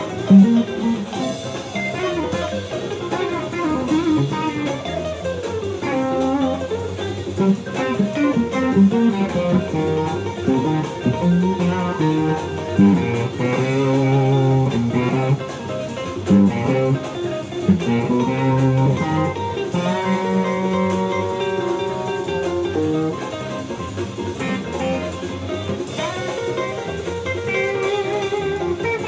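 Stratocaster-style electric guitar played through an amplifier: a continuous improvised run of single-note lines and chords, with bent notes sliding up and down in pitch.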